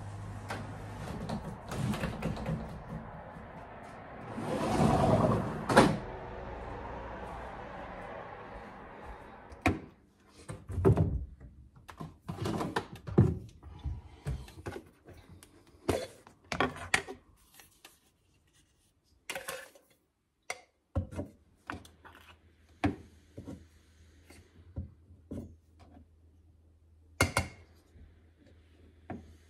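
A window being opened: a long rustling rattle that swells about five seconds in and ends with a sharp click. Then, from about ten seconds in, scattered clinks and knocks as metal canisters and a tin lid are handled on a kitchen counter, one at a time with short pauses.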